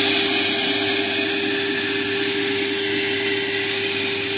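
Wet/dry shop vac running with a steady motor whine, its hose held under the surface drawing standing water out of a flooded water meter box.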